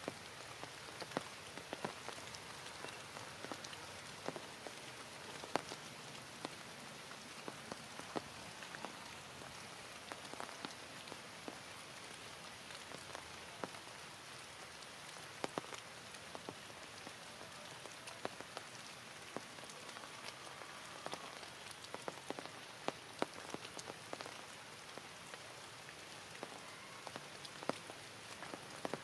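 Heavy rain falling: a steady hiss with many scattered sharper drops ticking on surfaces.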